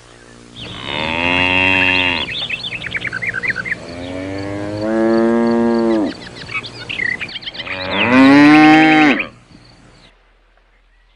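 Cows mooing: three long moos, each dropping in pitch at the end.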